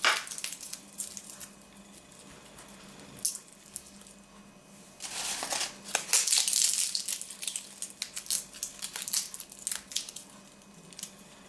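Dry bay leaves crackling and rustling as they are broken up by hand and scattered over salted trout fillets. The crackling comes in short bouts, busiest in the second half.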